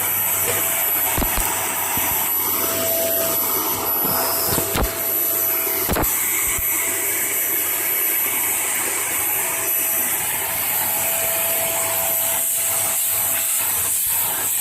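Vacuum cleaner running steadily with a constant high whine, with a few short knocks about a second, five seconds and six seconds in.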